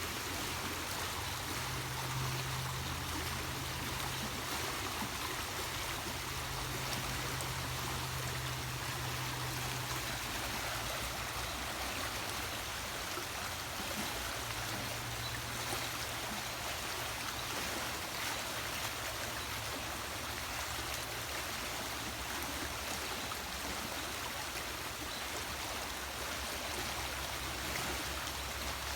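Steady rushing noise like running water, with a low hum underneath that shifts in pitch a few times.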